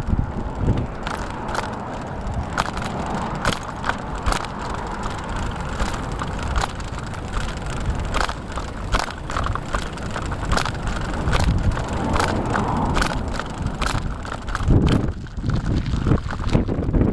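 Bicycle in motion: wind on the microphone and steady road noise, with irregular sharp clicks and rattles about once or twice a second.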